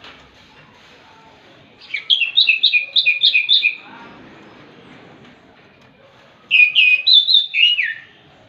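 Orange-headed thrush singing two short, loud phrases of quick repeated whistled notes, one about two seconds in and another near the end.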